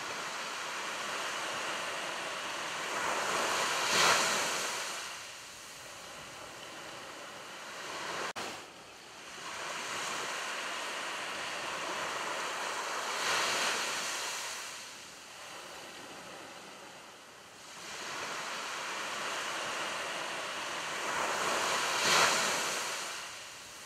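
Ocean surf on a beach: waves swell to a crash and wash back out, three times about nine seconds apart.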